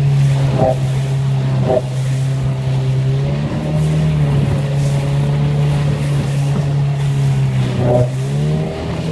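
Motorboat engine running hard at speed, its steady hum briefly wavering in pitch several times as the boat jumps the waves, with a few short knocks from the hull hitting the water.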